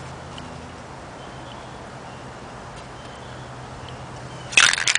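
Steady low background hum with a few faint short high tones. About four and a half seconds in, a loud clatter of sharp clicks begins as a spray paint can is picked up and handled, the can and its mixing ball rattling.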